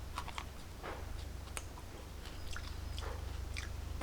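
Someone chewing a raw fish mint (Houttuynia cordata) root, with scattered crisp crunches and clicks. The root is tough with age.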